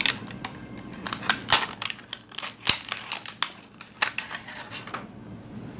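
Packaging being handled and opened by hand: irregular crinkling and sharp clicks that stop about five seconds in.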